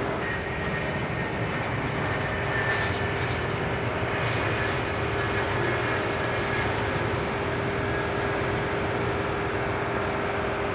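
JASDF F-4 Phantom's twin J79 turbojets running steadily as the jet rolls out after landing with its drag chute deployed: continuous jet noise with a steady high whine.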